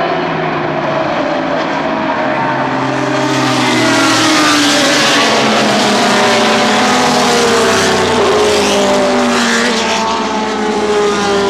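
A pack of Group C sports-prototype race cars running at racing speed, several engines heard at once with their notes rising and falling as the cars pass. The sound gets louder about three and a half seconds in.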